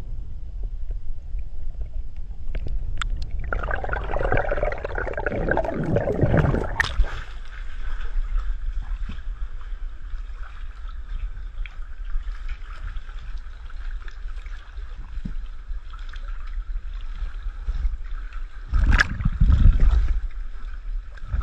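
Water sloshing and gurgling close against an action camera as a swimmer moves underwater and at the surface, with a louder gurgling rush about four seconds in. Near the end there are splashes from hand strokes at the surface.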